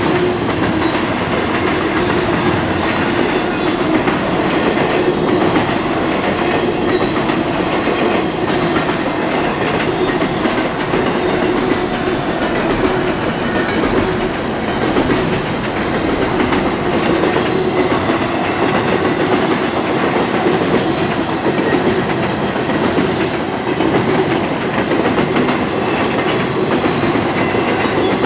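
Cars of a Canadian Pacific freight train rolling steadily past, a continuous rumble with faint repeated wheel clicks over the rail.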